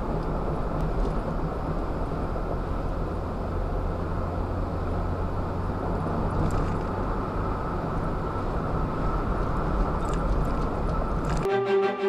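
Steady road and engine noise of a car driving in traffic at speed, a low even hum. Music comes in sharply near the end.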